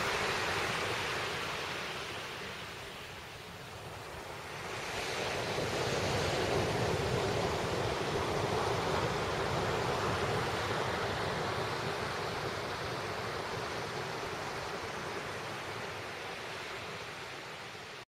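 Ocean surf breaking on a sandy beach: a steady rush of waves that dips a few seconds in, swells again about five seconds in, then slowly eases off.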